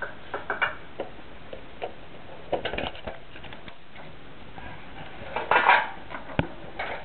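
A metal trading-card tin being handled and opened: scattered metallic clinks and scrapes from the lid. The loudest scrape comes a little past five seconds in, followed by a sharp click.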